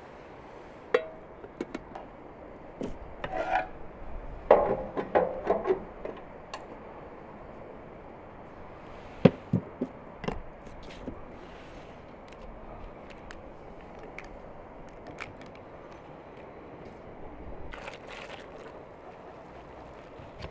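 Clatter of enamelware: a metal scoop and an enamel bucket lid knocking and scraping against the bucket and bowl as flour is scooped out. There is a cluster of ringing clanks about four to six seconds in, a few sharp taps around nine to ten seconds, and then only softer handling noise.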